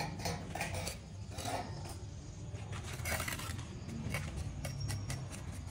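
Hand tools scraping and rubbing on a hard surface, with scattered light knocks and clicks and one stronger scrape about three seconds in, over a steady low hum.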